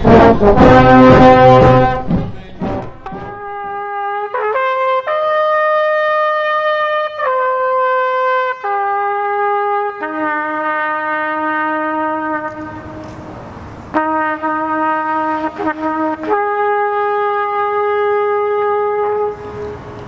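A brass band plays loudly with drum beats for the first couple of seconds. Then a solo trumpet plays a slow bugle call, one long held note at a time, ending shortly before the end.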